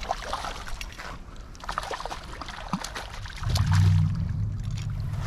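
Light splashing and scattered clicks as a hooked trout is brought in. About three and a half seconds in, a loud low steady hum starts and holds.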